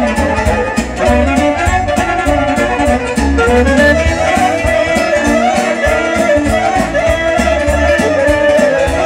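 Live Romanian lăutari band music with no singing: a fiddle leads a quick, ornamented melody over a steady bass-and-percussion beat.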